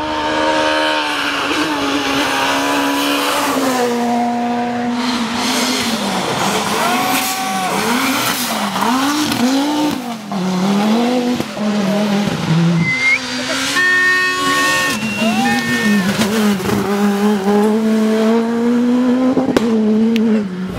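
Rally car engines revving hard past the listener, the pitch repeatedly climbing and dropping with gear changes and lifts off the throttle. The swings come quickest in the middle.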